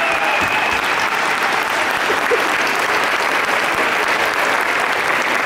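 A large crowd applauding steadily, a dense even clapping that keeps up throughout.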